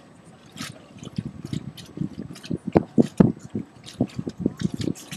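Small choppy waves lapping and slapping irregularly against a wooden dock edge, in a quick uneven run of splashes.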